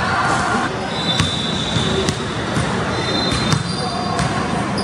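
Basketball bouncing on a hardwood gym floor, with sneakers squeaking sharply on the boards a few times.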